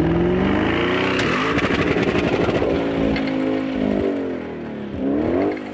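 Audi RS6 C7's twin-turbo V8 revving hard through its exhaust, the pitch climbing and dropping several times, with a sharp climb near the end.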